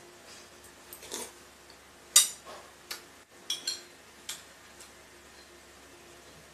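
Metal spoon clinking and scraping against a ceramic soup bowl while eating, in a string of short clinks with the sharpest about two seconds in, mixed with mouth sounds of eating.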